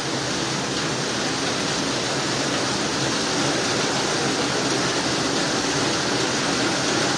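Steady rushing of fast-flowing floodwater running down a street, mixed with heavy rain.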